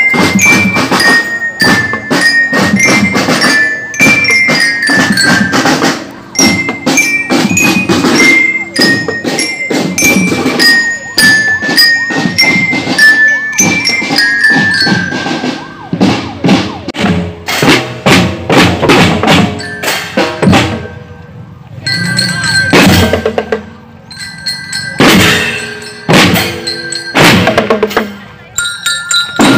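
Marching drum band playing: marching glockenspiels ring out a stepping melody over snare and bass drums. After about sixteen seconds the melody thins out and the drumming turns sparser, with short pauses between phrases.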